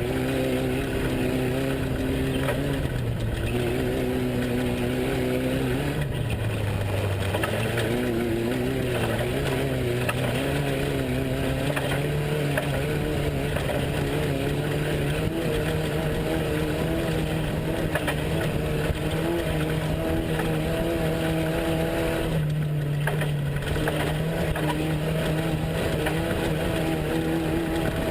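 Off-road race truck engine running without a break, its pitch dipping a few seconds in, then rising and shifting again near the end as the revs change.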